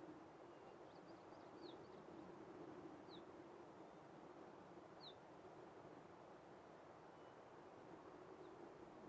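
A bird giving short, high, down-slurred chirps, one every second and a half to two seconds, over a faint, steady outdoor hiss.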